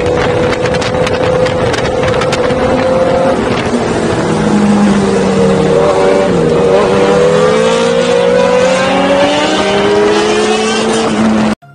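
Honda CBR1000RR Fireblade's inline-four engine running at road speed, its pitch dipping and rising a few times with the throttle, under heavy wind rush on the microphone. The sound cuts off abruptly near the end.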